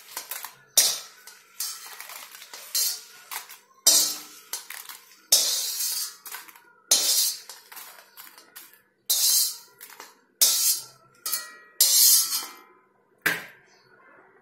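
Metal spatula scraping and clanking against an iron kadai while crisp roasted dry red chillies are scooped out. About a dozen irregular strokes, each a sharp hit with a hissy scrape that dies away quickly.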